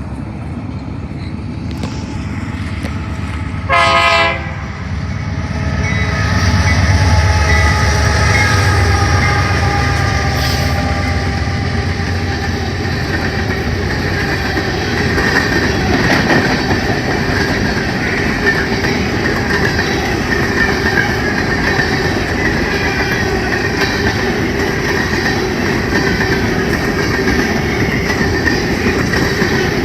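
A BNSF empty coal train passing. Its lead diesel locomotive, a GE AC4400CW, gives one short horn blast about four seconds in. A heavy locomotive rumble follows, then the steady rolling noise and clickety-clack of empty coal cars going by.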